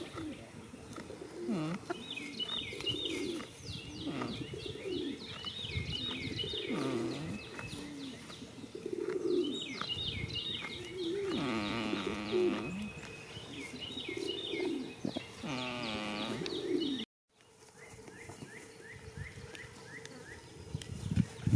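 Small songbirds chirping in quick twittering runs, over low pitched sounds that rise and fall every second or two.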